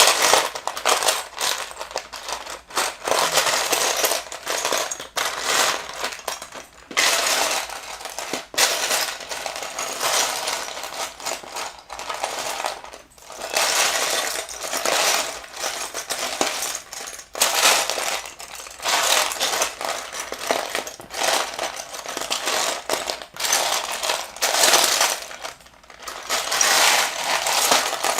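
Small plastic Mega Construx building pieces clattering and rattling as a hand rummages through a pile of them, a dense run of clicks in stretches with short pauses.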